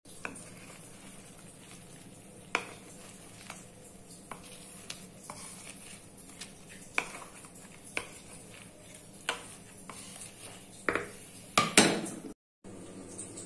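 A cooking utensil clinking and scraping against a pan of shrimp in sauce, in scattered single knocks, with the loudest clatter near the end over a steady hiss. The sound cuts out briefly just before the end.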